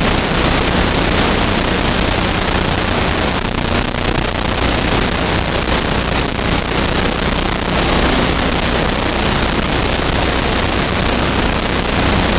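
Loud, steady hiss that covers everything, with a low steady hum beneath it.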